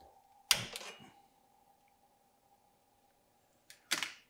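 Gas stove burner under a wok being lit: a sharp ignition burst about half a second in, a faint steady tone behind it, and another short burst near the end.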